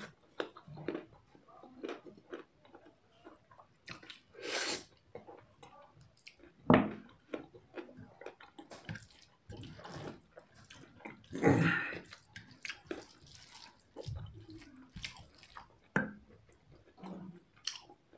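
A person chewing and eating chicken and noodles close to the microphone: irregular wet mouth clicks and chewing, with two louder bursts about seven and twelve seconds in.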